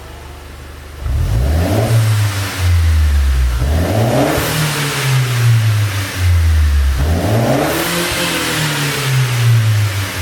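Mercedes-Benz W204 C200 CGI's turbocharged four-cylinder engine, tuned for exhaust pops, idling and then revved three times, each rev rising and falling back, with sharp pops from the exhaust as the revs drop.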